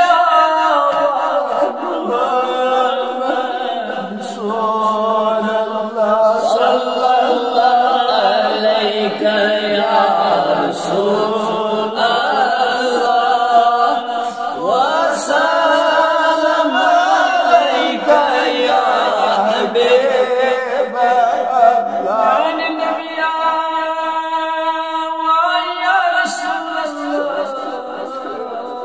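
A male voice chanting a darood, the Islamic devotional salutation on the Prophet, unaccompanied, in long held melodic lines.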